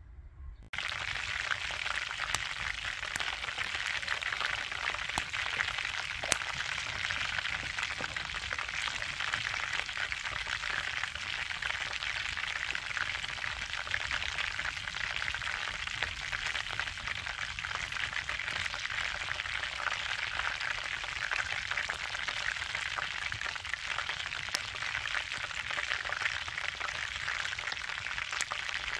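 Chicken legs frying in hot oil in a cast-iron grill pan: a steady sizzling hiss with occasional sharp pops, starting about a second in.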